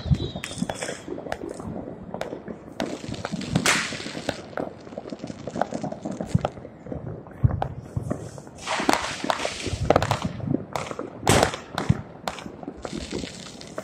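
Fireworks and firecrackers going off in a continual, irregular string of sharp bangs and crackles, many overlapping. Louder bangs come about 4, 9, 10 and 11 seconds in.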